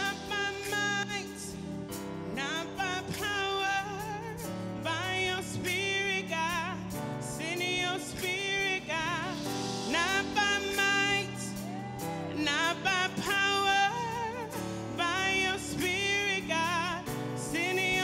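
Live gospel worship song: a woman sings the lines "Not by might, not by power… by Your spirit God" with vibrato over steady held accompaniment chords.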